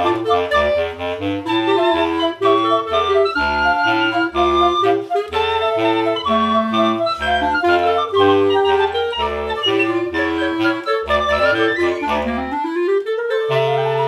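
Woodwind quartet of piccolo, flute, clarinet and bass clarinet playing a dobrado, a Brazilian band march, with the bass clarinet marking the low bass line in short notes under the melody. Near the end the parts climb in a rising run into a held chord.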